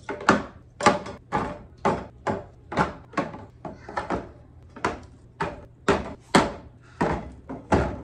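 Plastic toiletry bottles and an aerosol can being set down one after another into a clear plastic storage bin, a short clack or thunk about twice a second.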